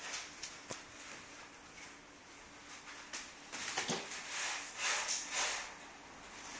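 Soft rustling of fabric and fur with a few light knocks, from a kitten moving about on a bedspread right against the camera; the rustling is thickest in the second half.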